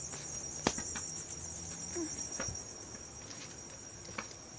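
Steady high-pitched chorus of crickets, with one sharp click a little under a second in and a few fainter clicks later. A low hum underneath fades out about two seconds in.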